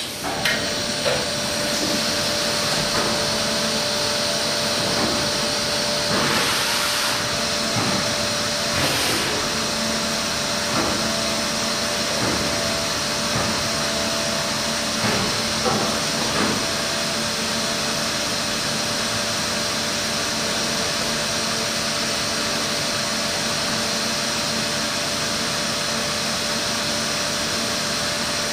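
Matsuura H.Plus-630 horizontal machining centre running with a KOMET KOMTRONIC facing head in its spindle, turning contours on a chucked part: a steady machine whir and hiss with a few fixed humming tones, and several short louder swells in the first half.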